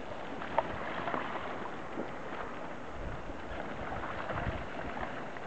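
Tyres of hand-cranked all-terrain quad handbikes rolling over a dirt and gravel track, with a few light clicks from the bikes, and low buffets of wind on the microphone in the second half.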